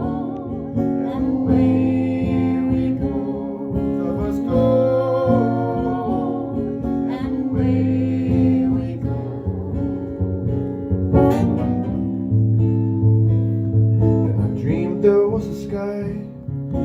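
Acoustic guitar playing an instrumental passage between the sung verses of a song.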